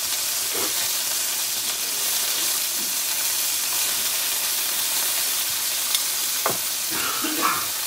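Chicken breast pieces sizzling steadily in hot oil in a nonstick skillet, with a few light clicks and scrapes as metal tongs turn them.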